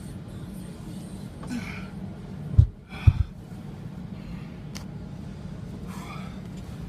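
Steady low rumble inside a semi-truck cab, with a man breathing hard between exercise reps. Two heavy low thumps come about two and a half and three seconds in.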